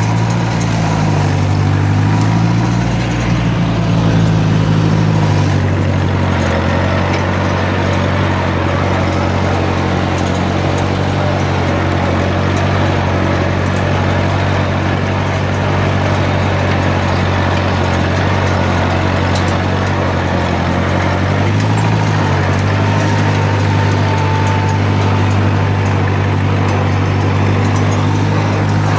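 1958 Cockshutt 540's four-cylinder flathead engine running steadily while the tractor pulls a single plow, heard from the tractor itself. Its note wavers a few seconds in and again a little past twenty seconds in.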